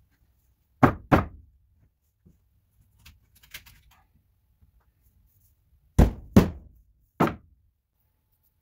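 Sharp knocks and thunks on wooden floor framing: two about a second in, a few faint clicks a couple of seconds later, then three louder knocks between six and seven and a half seconds in.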